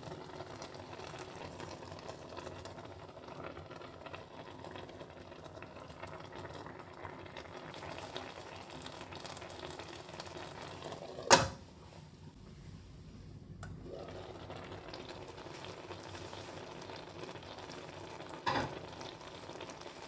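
Soy-and-mirin broth with chicken and mushrooms simmering in a frying pan, a steady bubbling. A sharp knock about halfway through, and a smaller one near the end.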